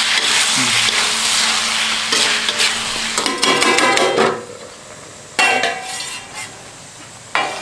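Tomatoes sizzling in hot oil and spices in an iron wok as they are stirred with a metal spatula. About three seconds in, the sizzling drops and the spatula knocks and scrapes against the wok with short ringing clanks, and there is another clank about five and a half seconds in.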